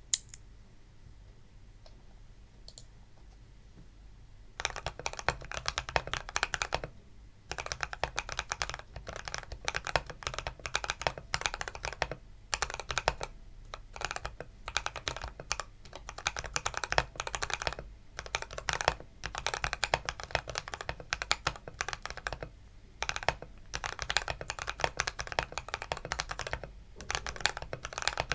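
Typing on a mechanical keyboard with lubed Outemu Red linear switches and PBT keycaps, foam under the PCB. After a single click at the start and a few quiet seconds, fast keystrokes begin about four and a half seconds in and run on in bursts with brief pauses.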